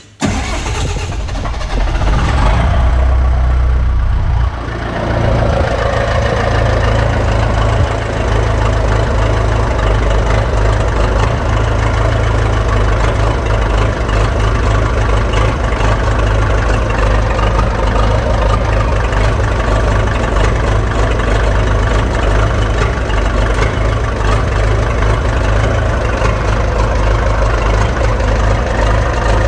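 A worn-out Buda D175 diesel engine, in a 1965 Allis-Chalmers forklift, is cranked with a metered shot of ether and catches within the first few seconds. It then runs steadily through a cold idle, snorting and coughing on diesel until it warms up.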